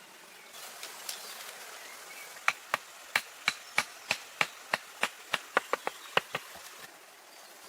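Wood being chopped with a blade: a run of about fifteen sharp strikes, roughly three a second, quickening toward the end, over a steady outdoor hiss.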